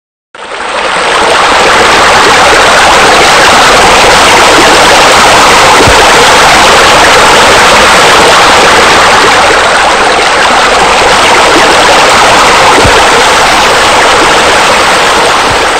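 Steady, loud rush of falling water, like a spa spillway pouring into a pool, fading in quickly just after the start.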